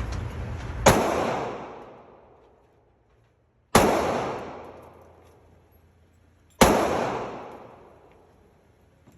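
Three handgun shots fired about three seconds apart, each a sharp crack followed by a long fading echo.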